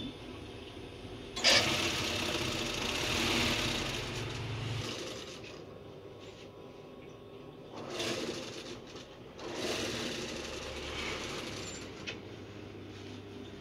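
Industrial mattress tape-edge sewing machine stitching binding tape onto a mattress edge, running in bursts: a long run starting about a second and a half in, then two shorter runs around the middle, with a steady motor hum between them.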